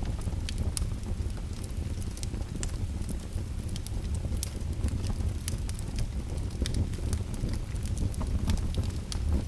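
Fire crackling: a steady low rumble with scattered sharp pops and snaps throughout.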